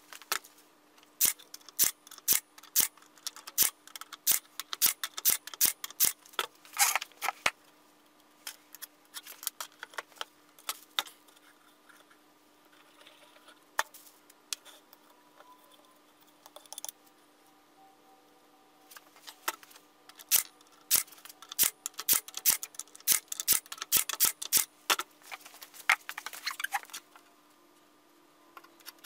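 Handling noise on a plywood workbench: many sharp clicks, taps and rustles as small wooden blocks and a brown paper bag are moved about, in two busy stretches with a quieter gap in the middle. A faint steady hum runs underneath.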